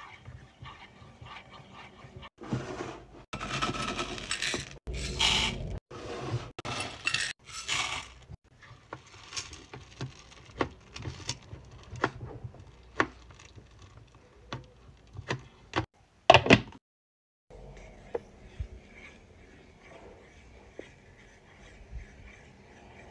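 Wooden spatula stirring hard wax beads in the metal pot of a Mylee wax warmer. Rattling scrapes run for several seconds, then come a string of sharp clicks and clinks of the stick against the metal. The loudest is a double knock about two thirds of the way through.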